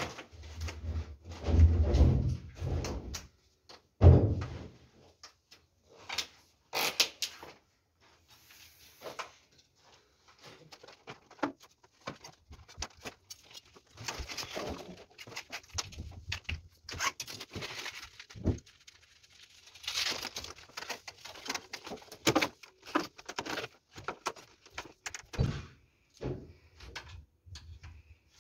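PVC conduit pipes being handled and worked into place: scattered knocks, clicks and plastic rubbing, with two heavy thumps about two and four seconds in.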